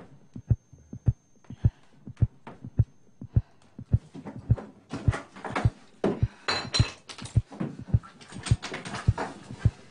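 A low thumping pulse like a heartbeat, a little under two beats a second. About four seconds in, a busier layer of clattering and scuffling joins it.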